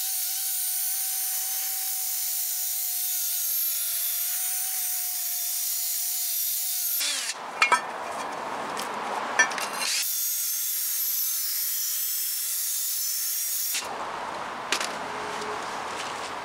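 Cordless drill spinning a wire brush against the rusty hub face of a rear brake rotor, cleaning off rust. A steady whine with a harsh scratchy hiss breaks off into scraping and clicks for a few seconds around seven seconds in, then resumes and stops about two seconds before the end.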